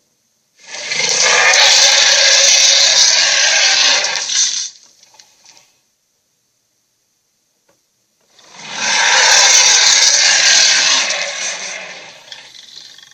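Giant gorilla monster sound effect: two long, raspy roars, each about four seconds, with a pause between them; the second trails off slowly.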